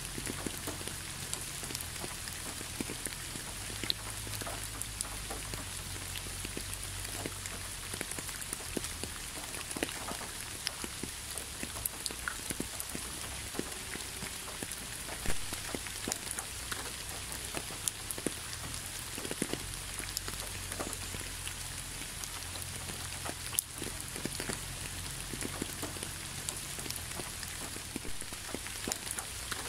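Steady rain falling, with many separate drops ticking close by and a few louder drops now and then.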